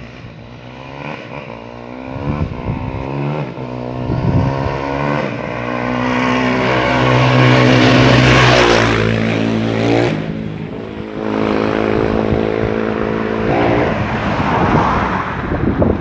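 A motor vehicle approaching along the road and passing close by: its engine grows louder to a peak about eight seconds in, drops in pitch as it goes past a second or two later, then fades away.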